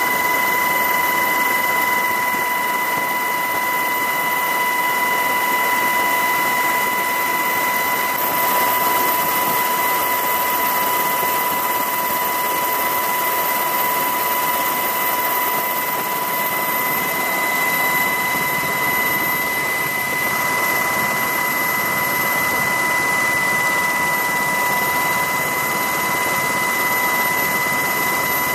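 Helicopter turbine and gearbox noise heard on board in flight: a steady rush with a high, even whine that does not change.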